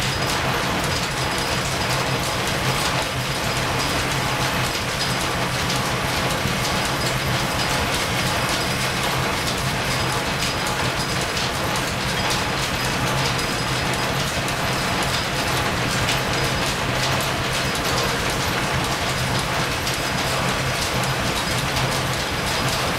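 Belt-driven metal lathe running in a line-shaft machine shop: a steady dense clatter of gears and flat belts over a low steady hum.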